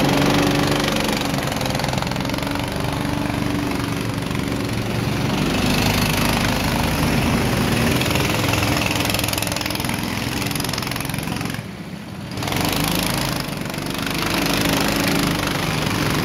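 Several go-kart engines running close by, idling and revving, their pitch rising and falling as karts pull away one after another. The sound drops briefly about twelve seconds in.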